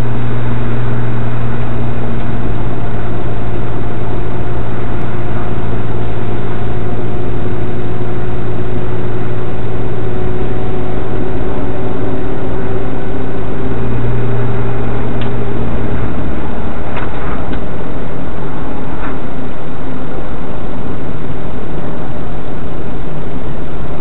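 Car driving, heard from inside: a steady low drone with a slowly rising whine above it. About two-thirds of the way in the drone drops away and a few short sharp clicks come through as the brakes come on and the ABS grinds, which the owner puts down to the rear ABS sensor not reading right since an axle swap.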